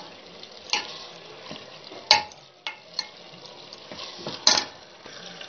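Steel spoon stirring keema (minced meat) frying in oil in a steel pot: a low sizzle under a handful of sharp knocks and scrapes of the spoon against the pot, the loudest about two seconds in and again near four and a half seconds. The mince is at the end of its browning (bhunai), with the oil separating out.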